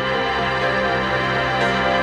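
Instrumental passage of a psychedelic rock remix: dense, sustained chords with no vocals, and faint regular accents about once a second.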